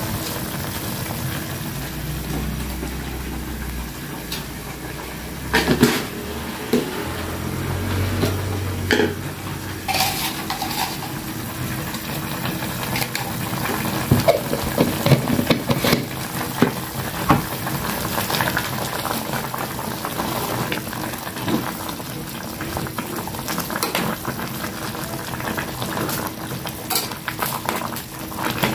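A metal pot of vegetables boiling, bubbling steadily, with scattered clicks and knocks of metal against the pot.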